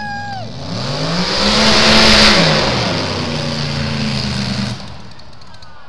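Race boat's engine passing at speed: it grows louder, is loudest about two seconds in, drops in pitch as the boat goes by, then cuts off suddenly near the end.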